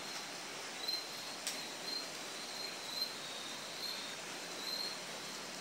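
Cricket chirping at night, a short high chirp about once a second over a steady background hiss, with a faint click about a second and a half in.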